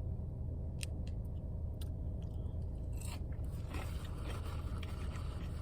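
Close-up chewing and biting of food, with a few sharp clicks early on and crinkly scraping from about halfway, over a steady low hum.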